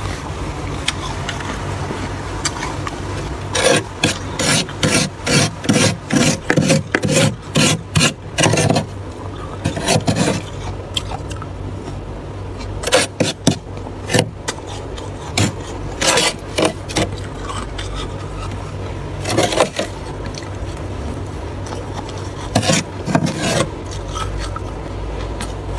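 Built-up freezer frost being scraped off the inside of a freezer compartment: a long run of quick scraping strokes a few seconds in, then shorter bursts of scraping, over a steady low hum.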